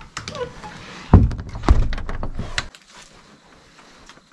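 A wooden cabin door being shut: a short squeak, a few sharp clicks of the latch, and a stretch of thuds and knocking.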